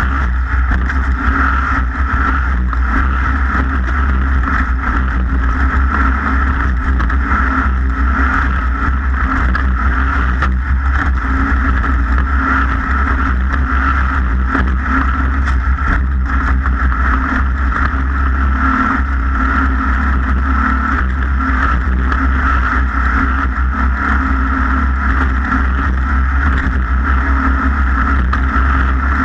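Racing boat's engine running steadily at speed, a loud, constant drone that holds its pitch and level.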